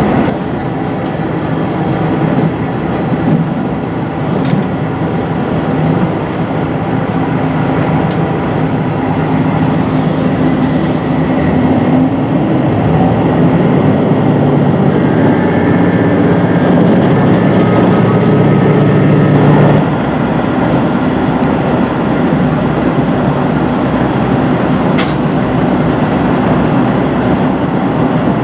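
Cabin noise inside a HOT7000-series diesel railcar running along the line: the steady drone of its underfloor diesel engines mixed with rail noise. It grows louder until about twenty seconds in, when the engine note drops suddenly. Near the end there is a single sharp click.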